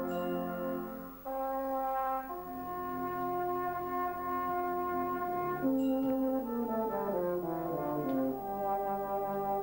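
Euphonium solo with brass band accompaniment: sustained brass notes in full chords, a short break about a second in, then a run of notes stepping downward about six seconds in.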